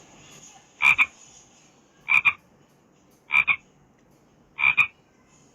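An animal's croaking call: four loud two-note calls, evenly spaced about 1.3 seconds apart.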